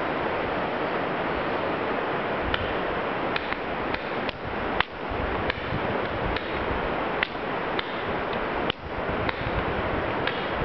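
Paintball markers being fired, the balls smacking into things nearby: about fifteen sharp cracks in irregular succession from a couple of seconds in, over a steady hiss.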